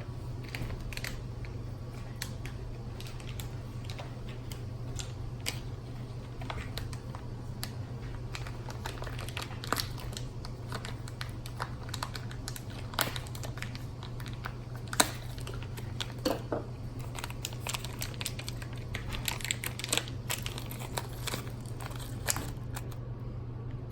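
Small plastic RC car parts and parts bags being handled: irregular light clicks and taps with some crinkling of plastic, over a steady low hum.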